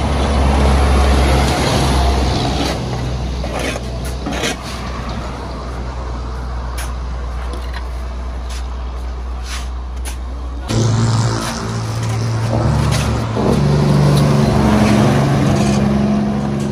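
Heavy diesel dump truck engine running hard under load. A few brief sharp sounds come through the first half. About eleven seconds in, the engine note changes and steps up and down in pitch.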